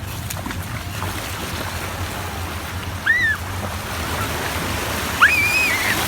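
Sea surf washing steadily, with a short high-pitched cry about three seconds in and a longer one near the end.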